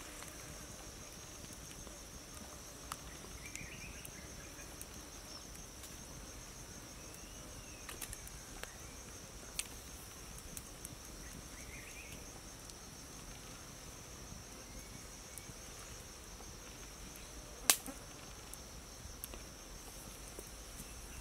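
Insects droning in a steady high trill, with scattered faint clicks and one sharp snap near the end.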